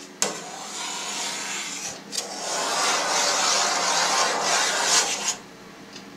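Long knife drawn through set cheese curd in a stainless steel vat, a rubbing, scraping rasp in two strokes with a short break about two seconds in, dying away about a second before the end.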